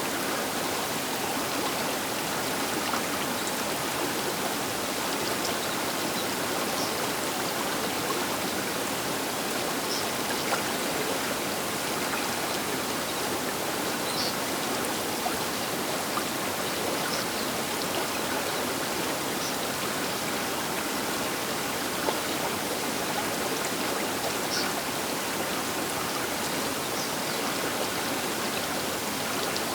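Baker River flowing past its bank: a steady, even rush of water, with a few faint high splashes and ticks.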